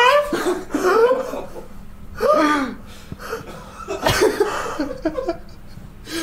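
A man laughing in about five separate bursts, the pitch sliding up and down within each.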